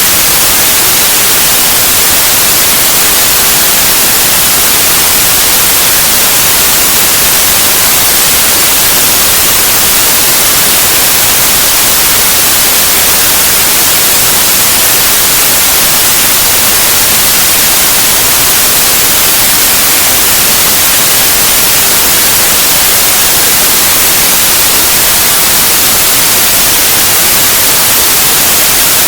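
Loud, steady white noise: an even, unbroken hiss across the whole range, strongest in the highs.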